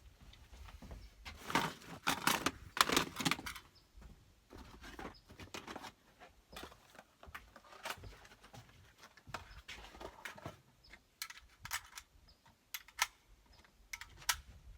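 Scattered small clicks and knocks of handling noise, with a short run of rustling and clattering about two to three and a half seconds in.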